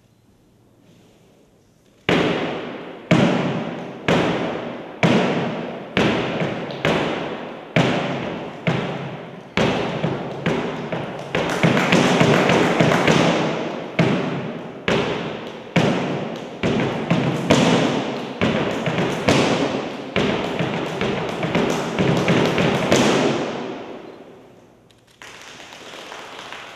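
Flamenco footwork: a dancer's boot heels and soles stamping on a platform, starting as single heavy strikes about a second apart and packing into quicker runs of beats in the middle and later, each strike echoing, then stopping near the end.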